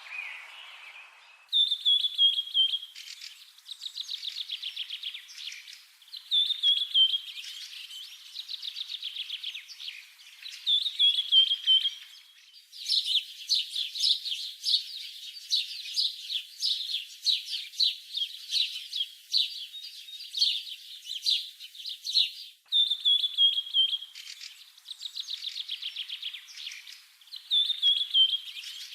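A songbird singing in repeated phrases, each a falling whistled note that runs into a fast trill, with a longer stretch of rapid chirping notes in the middle.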